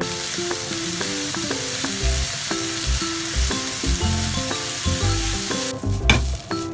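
Food sizzling loudly in hot oil in a pan, cutting off abruptly near the end, followed by a sharp knock.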